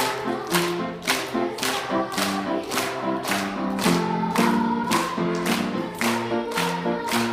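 Group singing with instrumental accompaniment over a steady beat of about two strikes a second.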